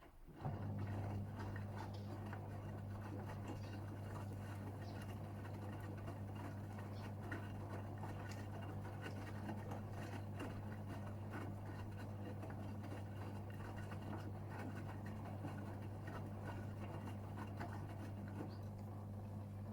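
Gorenje UseLogic 65165 washing machine's drain pump switching on about half a second in and running with a steady electric hum, water crackling and spattering through it as the drum is pumped out.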